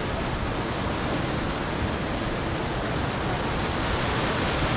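Steady rain falling, an even hiss that swells slightly and grows brighter about three and a half seconds in.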